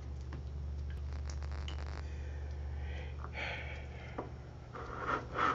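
Quiet room tone: a steady low hum with a few faint clicks, and soft breaths from the speaker about three seconds in and again near the end.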